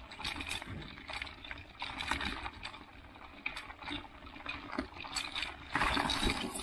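Bicycle on studded tyres rolling over snow: tyre crunch with many small rattling clicks from the bike, over a low rumble of wind on the microphone. About six seconds in, the noise swells into a louder rush.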